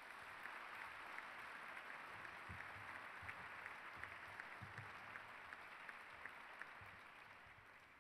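Audience applauding, a steady patter of many hands clapping that dies down near the end.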